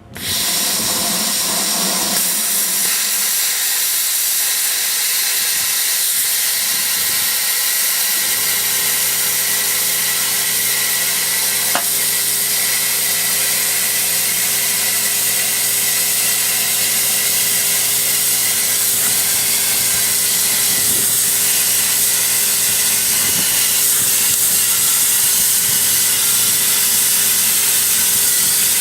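Plasma cutter cutting quarter-inch steel plate: a loud, steady hiss of the cutting arc and air stream that starts abruptly, with a steady low hum joining about eight seconds in.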